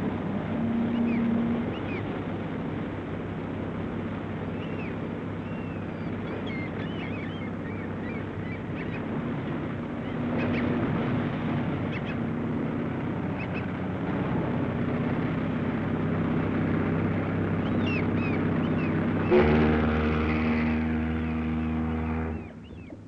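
Harbour sounds: a ship's engine drones steadily while gulls cry overhead. About nineteen seconds in, a ship's horn sounds one long blast of about three seconds that cuts off sharply.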